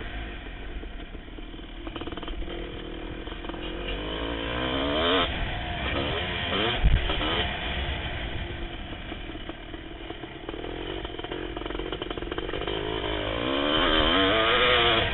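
1988 Kawasaki KX500's 500 cc two-stroke single-cylinder engine revving up and down under hard riding, climbing to high revs about four seconds in and again near the end. A thump about seven seconds in.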